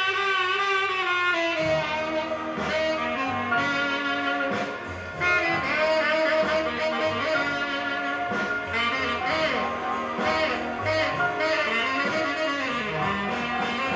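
Instrumental music played through a pair of vintage Philips 12-inch full-range speakers driven by a DIY parallel single-ended tube amplifier. A long wavering held note opens, then gives way to a run of quicker notes.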